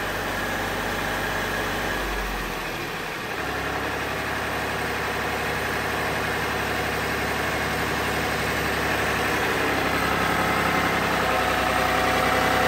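Tier 4 diesel engine driving a belt-driven 4-inch gravel pump, throttled back toward 900 rpm. Its note changes about three seconds in, then it runs steadily at low speed.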